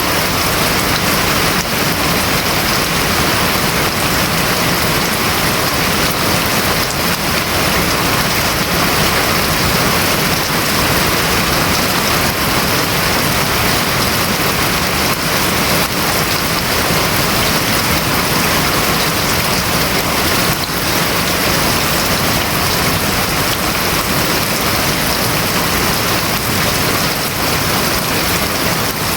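Steady heavy rain drumming on a house roof: a dense, even hiss of drops with no breaks or single hits standing out.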